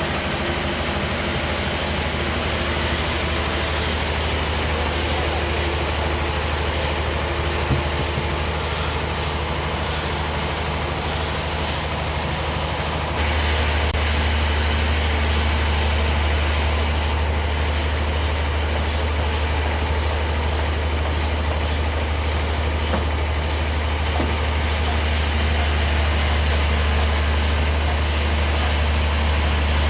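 Bandsaw sawmill running steadily with a strong low hum. About halfway through it steps up in loudness and takes on more high hiss, then carries on evenly.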